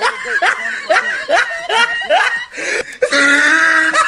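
Laughter: a run of short snickering bursts, about three a second, then a long drawn-out note about three seconds in.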